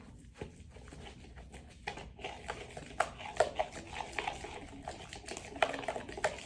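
Homemade slime being stirred after activator is added: irregular wet clicks and squelches, sparse at first and busier from about two seconds in.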